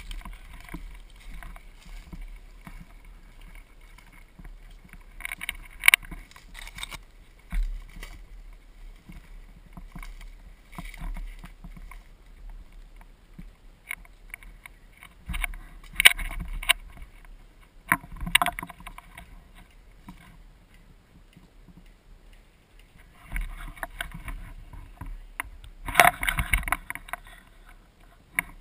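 Rustling and knocking of a rifle and gear handled on the move, picked up by a camera mounted on the gun. Sharp clicks come about 6 and 16 seconds in, and a busy cluster of clicks and rustling comes near the end.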